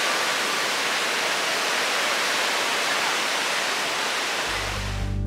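Ocean surf breaking and washing up a sandy beach, a steady rush. Low music notes come in near the end.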